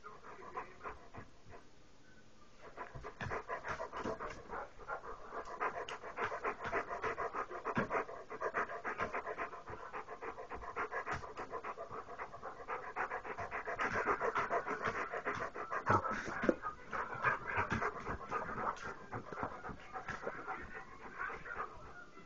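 A dog panting close to the microphone: quick, regular breaths that begin a couple of seconds in and carry on steadily.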